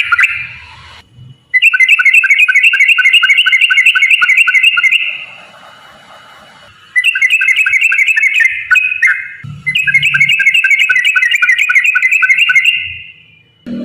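Yellow-vented bulbul (trucukan) singing long, rapid trills of repeated chirping notes, several runs of a few seconds each with short pauses between them.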